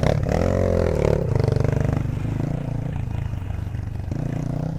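Aveta VTM 250 LX dirt bike engine running while riding off-road, its pitch dipping and coming back up in the first second, then holding steady, with some clattering from the bike over rough ground.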